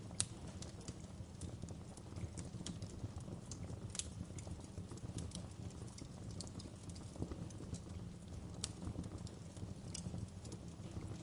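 Wood fire burning in a fireplace: a low steady rumble of flames with irregular sharp crackles and pops, the loudest pop just after the start.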